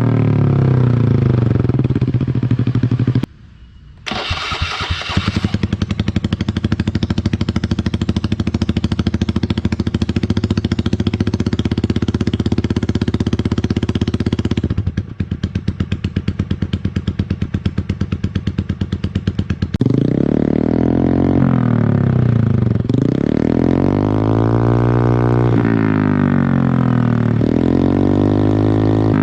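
Small motorcycle engine through a loud aftermarket free-flow 'samlong' exhaust: a rev dies down, the sound drops out for a moment a few seconds in, then the engine idles with an uneven, choppy beat, and in the last third it is revved up and let down about four or five times.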